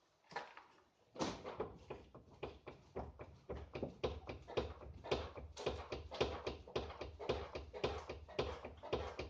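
Hyundai Santa Fe (DM) suspension knocking: a rapid, irregular run of sharp knocks, several a second, starting about a second in, over a low steady drone. The knocking is the sign of a suspension fault.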